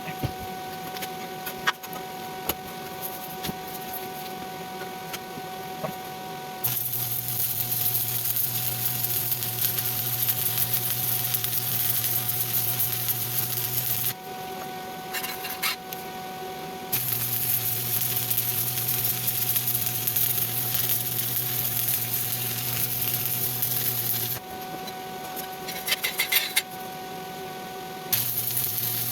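Stick welding arc crackling and hissing steadily in three long stretches that start and stop abruptly. Between them the arc is off, leaving a faint steady hum with scattered light clicks and taps.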